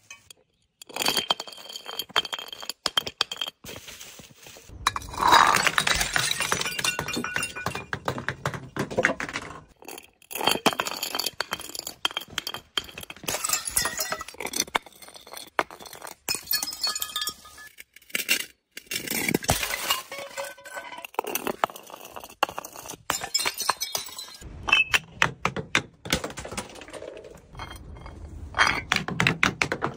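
Glass bottles and jars tumbling down stone steps and shattering: repeated clinks, knocks and crashes of breaking glass with scattering shards. Several separate breaks come one after another, with short pauses between them.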